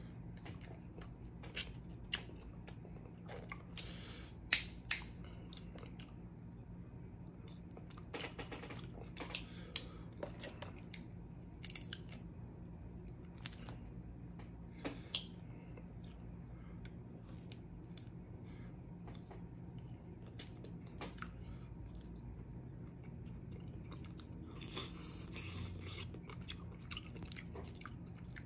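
Snow crab legs being cracked open and eaten: scattered sharp snaps and cracks of shell, some in quick clusters, with chewing in between. A steady low hum runs underneath.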